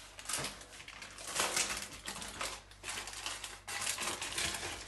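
Baking parchment paper rustling and crinkling in a string of uneven short bursts as hands lift it to roll a filled potato sheet over on a baking tray.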